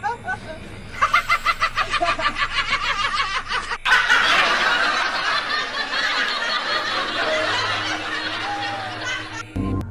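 Human laughter in quick pulses, about five a second. About four seconds in it gives way to a sudden, louder burst of several people screaming and shouting, which cuts off near the end.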